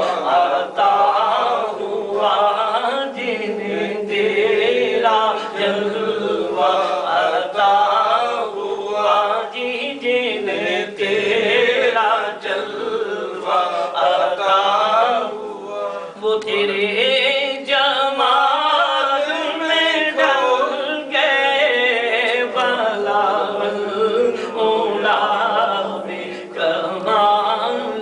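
A man singing an Urdu naat, unaccompanied, into a handheld microphone, with long wavering melodic lines.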